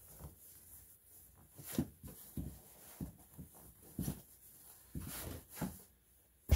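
Irregular rustling and soft bumps from handling a wire-framed puppet doll, its legs being bent and the doll set to sit up straighter.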